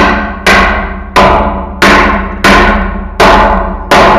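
Seven heavy blows on metal, about one every two-thirds of a second, each leaving a pitched clang that rings and fades before the next.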